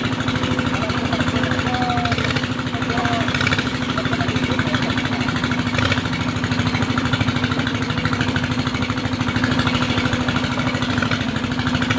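Excavator's diesel engine running steadily, a constant drone with rapid even pulsing.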